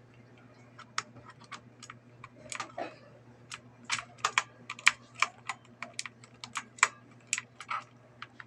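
Keys of a GK100F mechanical gaming keyboard being pressed, irregular sharp clacks a few per second, thickest and loudest in the second half.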